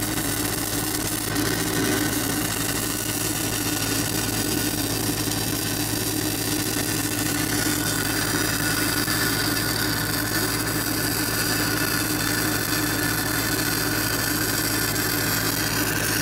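1/8-inch 6010 stick electrode arc crackling and hissing steadily as a root pass is run on steel pipe, over the steady hum of a Lincoln SA-200 engine-driven welder running.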